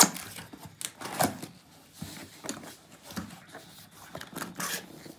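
Cardboard laptop box being torn open by hand: a sharp rip as the flap is pulled at the start and two more about a second in, then quieter scraping and rustling of the cardboard flaps.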